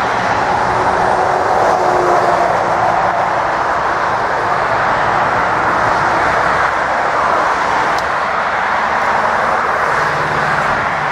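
Twin-engine jet airliner on final approach for landing: a loud, steady engine roar, with a faint whine sliding down in pitch in the first couple of seconds.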